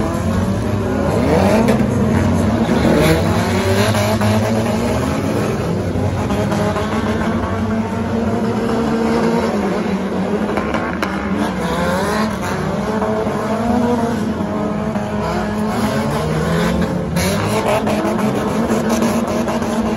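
A pack of stock cars racing, with several engines revving at once. Their pitches keep rising and falling, overlapping, as the cars accelerate and back off around the track.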